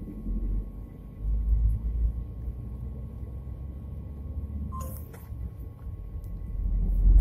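Low rumble of a vehicle driving, heard from inside its cabin, swelling louder about a second in.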